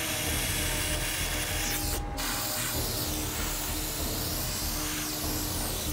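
Aerosol deodorant can spraying in long hisses, with a brief break about two seconds in before the spray starts again.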